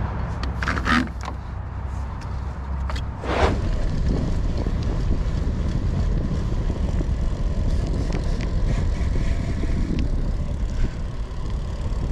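Wind buffeting the microphone and tyres rumbling over a dirt trail as a gravel bike is ridden, with a few short rattles or knocks in the first few seconds.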